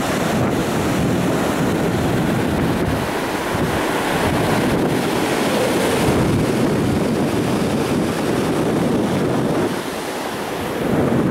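Ocean surf breaking and washing up on a sandy beach, a steady rushing sound, with wind buffeting the microphone.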